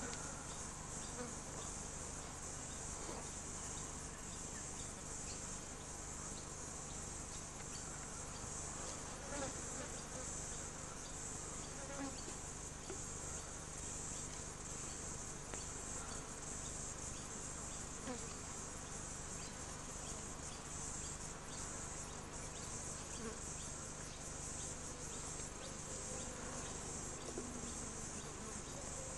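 Steady high-pitched insect chorus, with a low steady hum beneath it.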